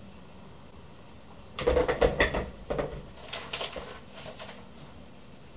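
Rummaging around: a short run of knocks, clatter and rustling that starts about a second and a half in and dies down over about two seconds, after quiet room tone.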